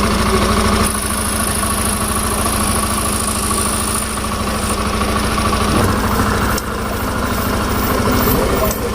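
Motorcycle engine idling steadily and smoothly, its newly fitted automatic timing chain tensioner keeping the cam chain quiet, with no rattle or bad noise from the timing chain.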